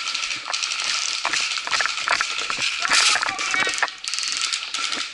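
Footsteps crunching over dry pine needles and twigs on a forest floor, with gear and clothing rustling and rattling in uneven steps.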